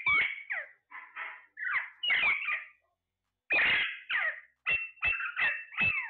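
Alexandrine parakeets squawking and chattering in a rapid series of short, gliding calls, with a brief pause about three seconds in. Near the end a thin, steady high whistle runs under the last few calls.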